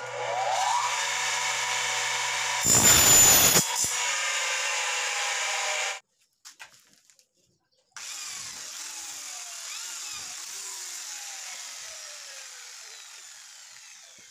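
Electric miter saw motor spinning up and cutting through square aluminium tubing, with a loud burst as the blade goes through the metal about three seconds in. After a short gap, an electric drill runs, drilling a hole in aluminium tube, its whine shifting in pitch and fading toward the end.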